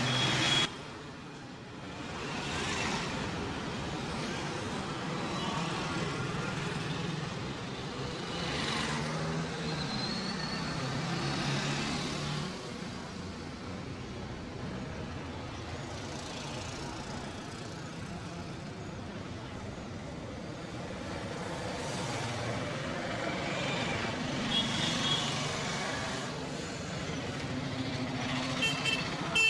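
Road traffic: vehicle engines running and passing, the sound swelling and fading, with a few short high beeps late on.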